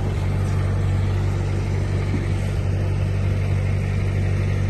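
A 1960 Citroën ID19's engine idling steadily, a constant low hum with no change in revs.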